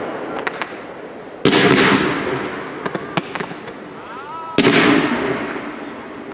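Aerial firework shells bursting: two loud booms about three seconds apart, each trailing off in a long rolling echo, with a few sharp pops between them.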